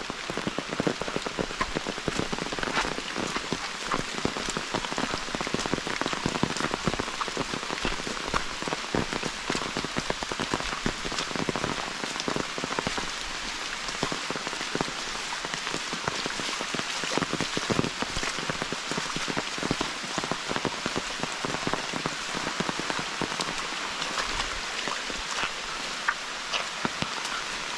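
Steady rain falling, with many individual drops ticking sharply on a surface close by.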